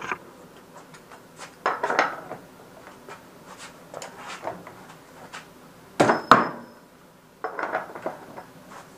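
Scattered metal clanks and rattles of tools and hardware being handled on the motorcycle's rear end. The sharpest clank, about six seconds in, rings briefly.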